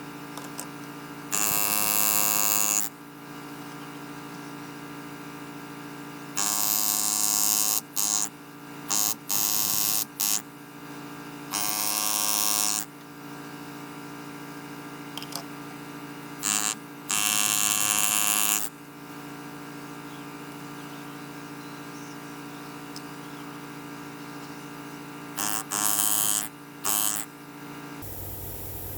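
A small electric power tool runs with a steady motor hum, broken by about nine loud, harsh bursts of grinding or sanding, each a fraction of a second to about a second and a half long, as it bears into the work. The sound changes about a second before the end.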